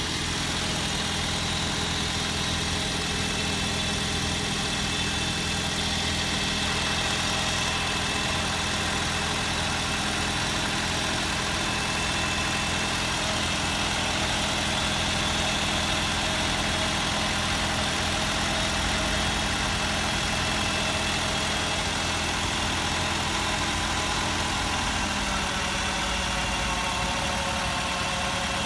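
Ford Focus 2 engine idling steadily, still running normally, with no sign yet of the unpleasant noise that the owner says comes on after a minute or two.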